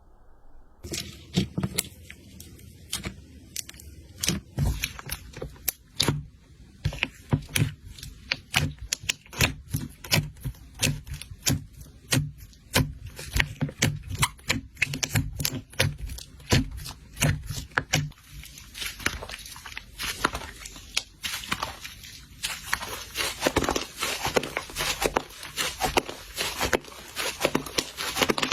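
Slime being handled, pressed and pulled, giving off dense, irregular clicking and crackling. It starts about a second in, and the clicks grow busier and brighter in the last third.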